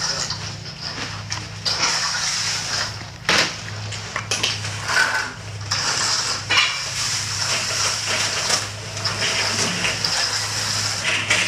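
Epoxy-coated pebbles scraping and clattering against metal, with irregular clinks and a gritty hiss over a steady low hum.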